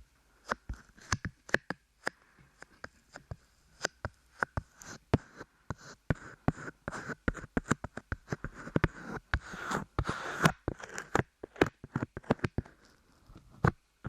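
Light clay squeezed and pulled against the microphone: irregular sticky clicks and crackles, growing denser in the middle.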